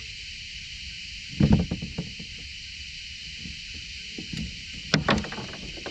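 Knocking and clatter of fishing gear being handled against a small boat's hull, in two short bursts: about a second and a half in, and again about five seconds in. Under it runs a steady high hiss of insects.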